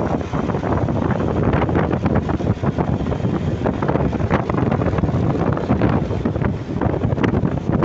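Wind buffeting the microphone over a steady rumble of road and vehicle noise, as when recording from a moving vehicle. No horn is heard.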